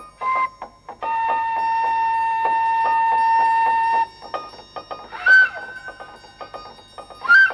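Cartoon soundtrack music and sound effects: a held high note over scattered clicks, then two short bright hits, each leaving a ringing tone.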